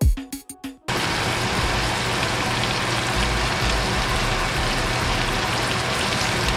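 A few beats of background music stop abruptly about a second in. After that comes steady sizzling and spitting of shrimp frying in melted butter in an open pan.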